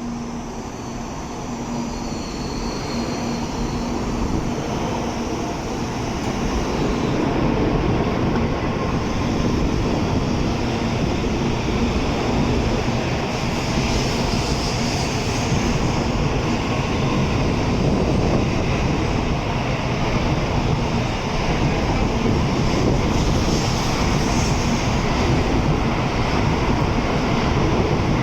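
A Shinkansen bullet train running along the platform. Its deep rumble and rushing noise build up over the first several seconds, then hold steady and loud.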